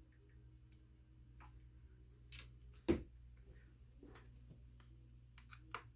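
Faint clicks and taps of a screwdriver and small screws being taken out of a MacBook's bottom case and set down, with one sharp click about three seconds in and a few light ticks near the end.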